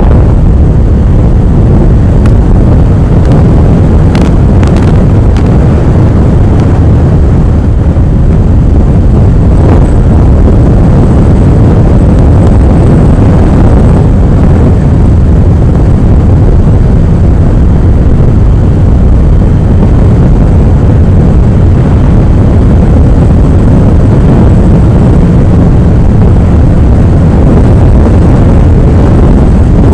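Strong wind buffeting the microphone of a moving motorcycle: a loud, steady low rumble, with a few faint clicks in the first five seconds.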